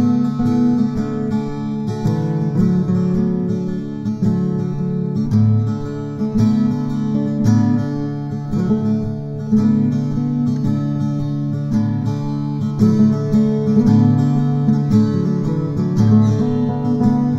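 Background music: an acoustic guitar strummed steadily.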